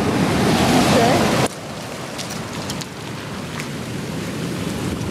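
Surf washing over a beach of small volcanic pebbles: a steady hiss of foam with the rattle and scattered clicks of stones. The sound drops abruptly to a lower level about one and a half seconds in.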